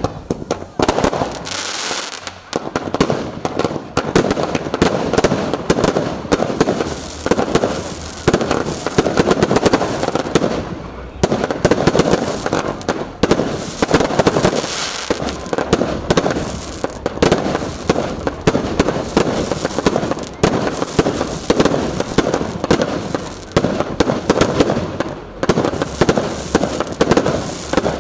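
Fireworks finale: a dense, nonstop barrage of bangs and crackling.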